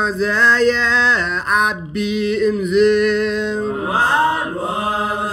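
A man chanting a Ge'ez hymn in the Ethiopian Orthodox zema style, drawing out the syllables in long melismatic runs with small wavering turns around one held pitch. He breaks briefly for breath about two seconds in.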